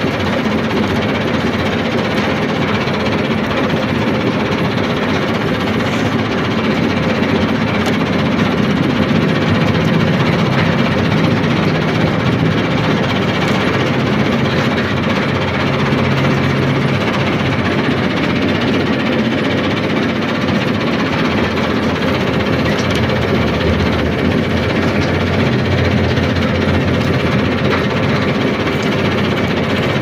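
An engine running steadily at an even speed, with no revving and no breaks.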